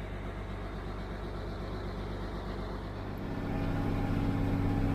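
Farm tractor engine running steadily, then getting louder and higher about three seconds in as it is throttled up.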